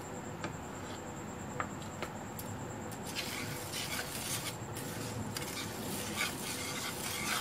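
A few light clicks, then from about three seconds in a wire whisk scraping rapidly around a pan, mixing milk into cocoa powder and sugar in quick repeated strokes.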